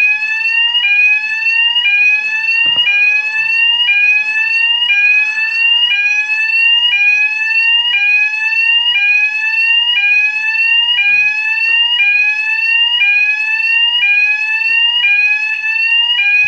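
Fire alarm sounding a loud, steady whoop: a rising tone that sweeps up over about a second, then drops back and repeats without a break.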